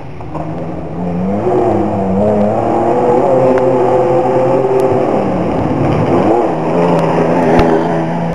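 Historic rally car engine working hard up a cobbled climb as the car approaches and passes close by. The engine note rises, holds high and loud, dips briefly about two-thirds through, then climbs again, with a sharp click near the end.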